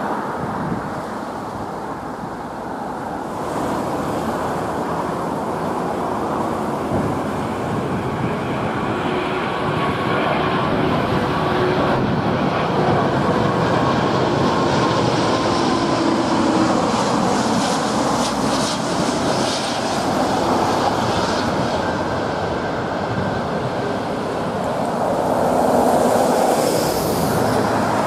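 Jet engines of airliners on final approach and landing: a continuous loud roar with a faint whine that sinks slowly in pitch through the middle.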